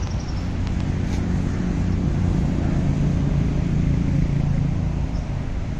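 A motor vehicle's engine humming as it passes on the road, building a little and then easing off.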